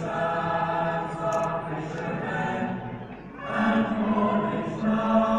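A choir singing in long held notes, easing off just after three seconds in, then coming back louder with a new phrase.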